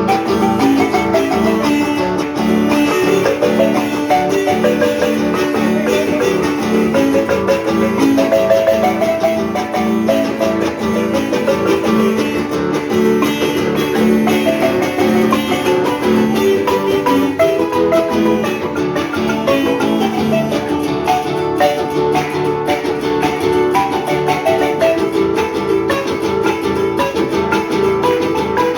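Marimba music: a continuous melody of quick mallet-struck notes with plucked-string accompaniment.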